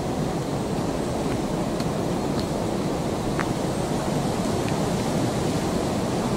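Wind buffeting the microphone: a steady, rumbling rush with a few faint ticks.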